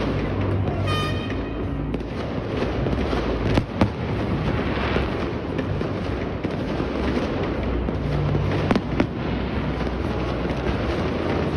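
Fireworks display: a continuous rumble and crackle of bursting shells, with sharp pairs of bangs about four and nine seconds in.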